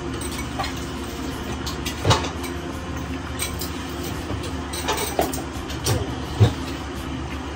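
Serving tongs, ladles and dishes clinking and knocking a few times at a hot pot table over a steady low hum, with the loudest knock about two-thirds of the way through.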